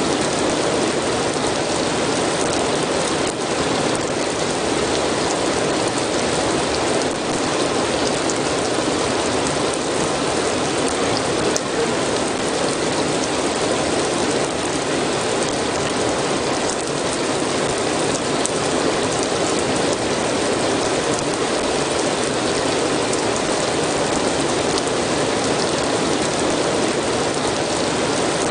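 Steady rain falling, an even dense hiss with occasional sharp drop ticks.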